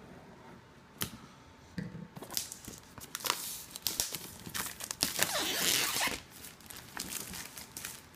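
Clear plastic shrink-wrap being torn and pulled off a cardboard box, crinkling and tearing in fits and starts, loudest about five seconds in.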